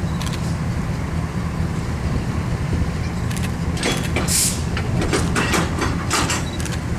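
Low, steady rumble of an approaching EMD E8A diesel passenger locomotive, powered by twin 567 V12 engines, with no horn sounding. From about three seconds in, a run of sharp clicks and ticks sounds over it.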